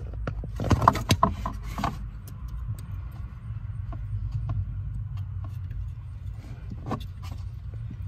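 Clicks and light metallic rattles from hand-fitting the 10 mm bolt and brake light switch hardware at the brake pedal, mostly in a quick cluster in the first two seconds, with a few more clicks near the end, over a low steady hum.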